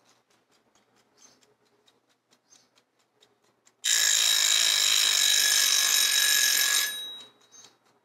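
Mechanical wind-up dial timer: light clicking as its dial is turned by hand, then about four seconds in its bell rings loudly for about three seconds and stops.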